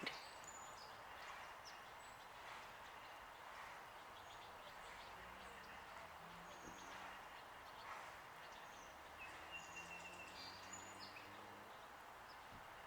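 Faint scattered songbird chirps and short calls over a quiet outdoor background hiss, with one brief thin whistled note about nine seconds in.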